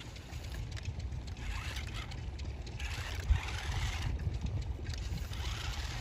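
RC rock crawler's electric drive whirring as it churns through a shallow muddy puddle, its tyres splashing and sloshing in spurts, with wind rumbling low on the microphone and a brief knock about three seconds in.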